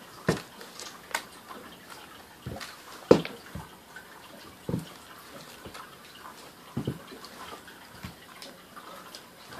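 Air Jordan 1 high-top sneakers stepping and shuffling on a wooden plank floor: irregular thumps and scuffs, the loudest about three seconds in.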